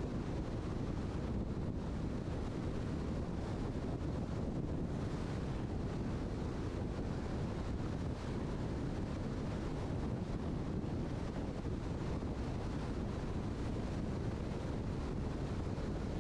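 Steady road and wind noise of a car driving at highway speed, a constant low rushing with no engine note or other events standing out.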